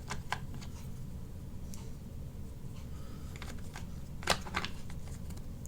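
Light clicks and taps from the plastic parts of a Mazda 3 door lock module being handled and fitted together: a few scattered clicks, the sharpest about four seconds in, over a low steady hum.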